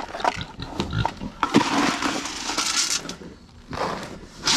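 Kunekune pigs, a boar and a gilt, grunting. The grunting is loudest through the first three seconds, eases off, then comes again in a burst near the end.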